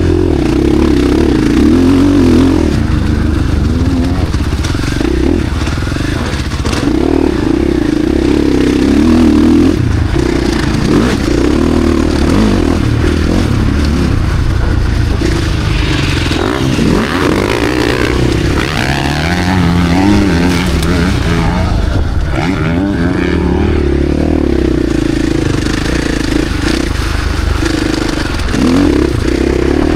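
KTM SX-F Factory Edition's four-stroke single-cylinder engine being ridden hard, its pitch rising and falling over and over as the throttle is opened and closed.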